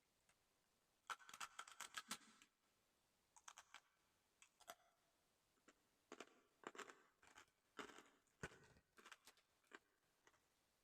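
Crispy chicharon crunching as it is bitten and chewed close to a condenser microphone, in several bouts of crackly crunches with short pauses between them.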